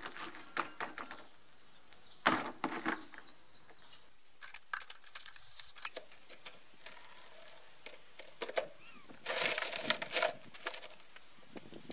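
Scattered clinks, knocks and scrapes of a BMW E30 output shaft's CV joint being handled and worked in a plastic bucket while its old grease is cleaned out, busier about two seconds in and again near the end.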